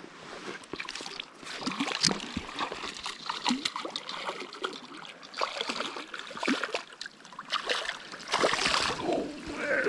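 Irregular water splashing and trickling, with louder splashes about two seconds in and again near the end, as a hooked trout is played and brought to the net in a creek.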